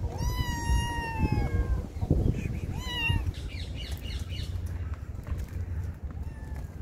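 Kitten meowing: a long, high, drawn-out meow that falls away at the end, then a shorter rising meow about three seconds in, and a faint one near the end.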